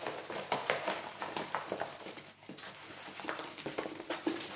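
Irregular rustling and light taps of paper being handled as a rolled diamond-painting canvas is unwrapped.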